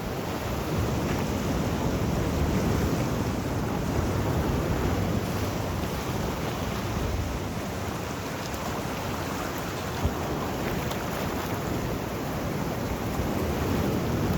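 Sea waves washing onto the shore in a steady, rolling rush, with some wind buffeting the microphone.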